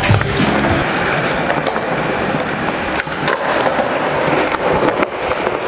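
Skateboard wheels rolling on a smooth concrete floor, a steady rolling hiss, with a few sharp clicks and knocks from the board.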